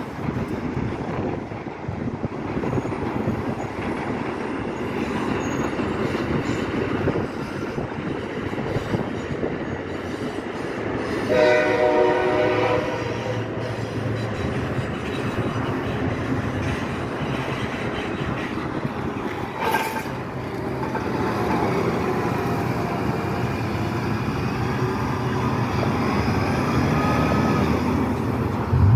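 Steady traffic and wind rumble, with one chord-like horn blast lasting about two seconds, about eleven seconds in. A brief sharp clank follows around twenty seconds in.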